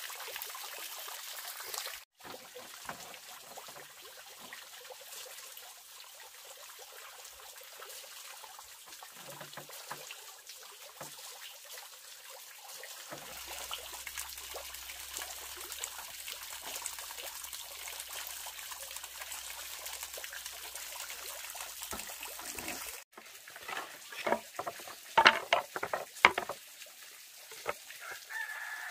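Steady trickle and splash of water spouting from a bamboo pipe into a pond. Near the end a few sharp knocks of wooden planks being handled.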